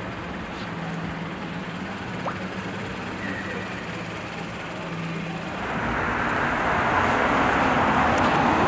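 City street traffic: a low steady engine hum, then the rush of passing traffic swelling louder about six seconds in.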